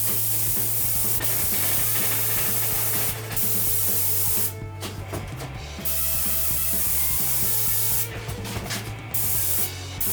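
Aerosol spray paint can spraying in long hissing bursts of a second or more up to about three seconds, with short pauses between.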